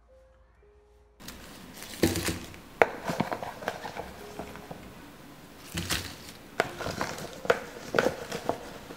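Kumquats on leafy sprigs being handled and dropped into a stainless steel mesh strainer: irregular soft knocks and clicks with leaf rustling, starting about a second in.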